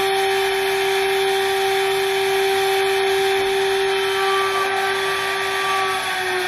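High-speed electric machining spindle on a parallel-kinematic robot running with a steady high whine over a hiss. Near the end its pitch starts to fall.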